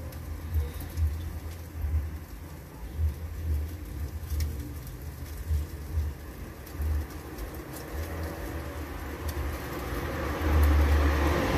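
Wood fire burning under a braai grid of grilling fish: sparse crackles and pops over a low, uneven rumble of the flames.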